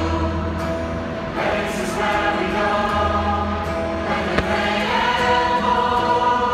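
Choral music: a choir singing held chords over a deep low note that comes and goes.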